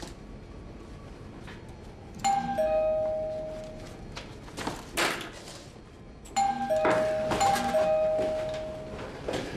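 Two-tone ding-dong doorbell chime, a higher note falling to a lower held one, rung twice about four seconds apart, with a sudden thump between the two rings.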